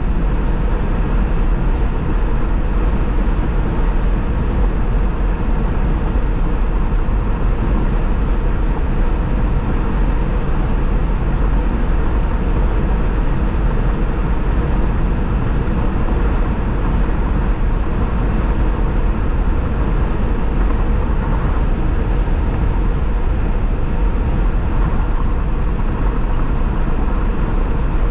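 Steady road noise of a car cruising at freeway speed: an even low rumble of tyres and wind with no change in pitch or level.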